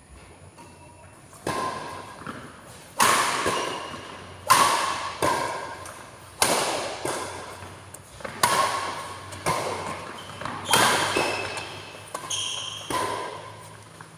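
Badminton rackets striking a shuttlecock in a rally, a sharp smack roughly every second, starting about a second and a half in. Each hit echoes in a large hall.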